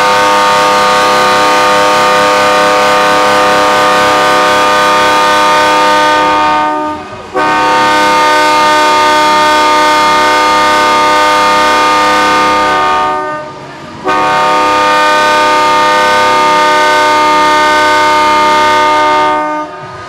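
Ice rink goal horn sounding three long blasts of about six seconds each, a steady chord of several notes, signalling a goal.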